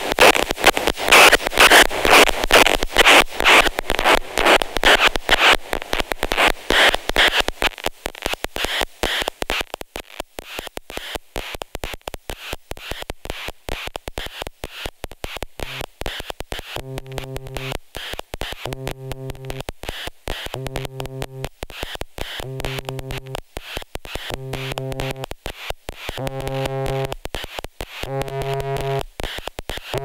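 Twintropiques 23 Psychoacoustic synthesizer playing a rapid stream of noisy clicking pulses, loud at first and thinning out after about eight seconds. About halfway through a low pitched tone joins, sounding in short repeated blasts about a second apart over the fast clicks.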